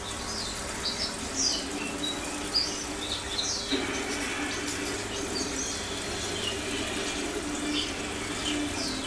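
Aquarium aeration running: a steady low hum and bubbling from the air stone, with short high chirps scattered throughout.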